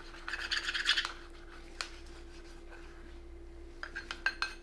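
A utensil scraping and stirring in a small container of soap colour thinned with olive oil: a short scraping stir near the start, a single click, then a run of quick taps and clinks near the end.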